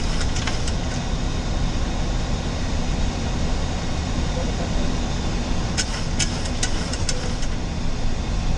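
Steady rush of airflow and engine noise inside a Boeing 737-800 flight deck in flight on approach, strongest in the low rumble. About six seconds in, a short run of sharp clicks.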